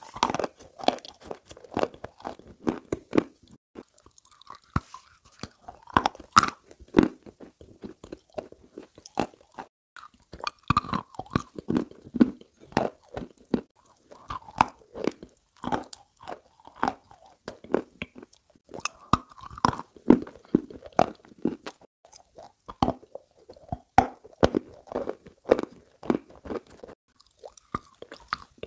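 Close-miked ASMR eating sounds: cream biscuits being bitten and chewed, with irregular crunching clicks throughout.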